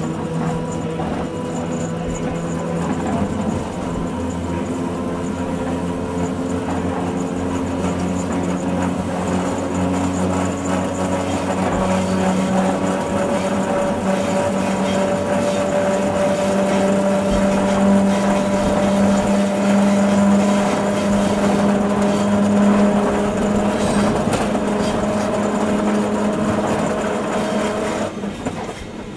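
Electric suburban train heard from the driver's cab: the traction motors whine with steady tones that rise slowly in pitch as the train accelerates, over the running noise. The motor tones cut out and the sound drops about a second before the end.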